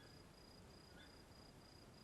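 Faint insect chirping: a high, even pulsed trill repeating about three times a second, with a few short, lower chirps among it.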